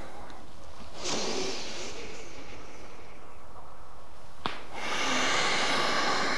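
A person breathing slowly and audibly during a yoga flow, with two long breaths about four seconds apart over a steady background hiss. A single faint click comes between them.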